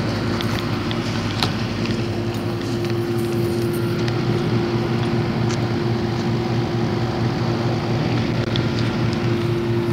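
1969 Lennox central air conditioner's outdoor condensing unit running: a steady hum with a few held tones over the even rush of its condenser fan, pretty quiet.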